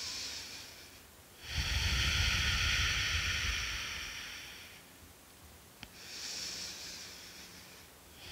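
Slow, deep breaths taken close to a headset microphone: three long swells of breath hiss, the longest and loudest with a low rumble of air hitting the mic. A faint click falls just before the last breath.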